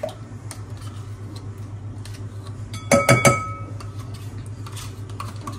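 A yogurt pot knocked against the mixing bowl to empty it without a spoon: a quick run of three or four ringing clinks about three seconds in, with a few lighter clicks around it. A low steady hum runs underneath.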